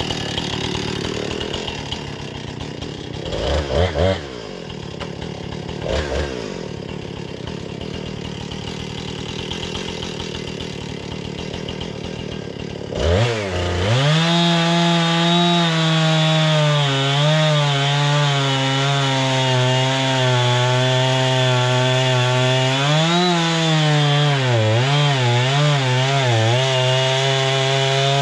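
Portable bandsaw sawmill's gas engine ticking over with two short throttle blips, then revved up about halfway through and held at high speed. The pitch wavers and dips a little, as it does when the blade is sawing through a log.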